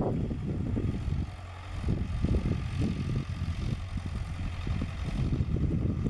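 David Brown 990 Selectamatic tractor's four-cylinder diesel engine running while pulling a mounted reversible plough, with a low, uneven pulsing note. The engine sound dips briefly just after a second in and picks up again near two seconds.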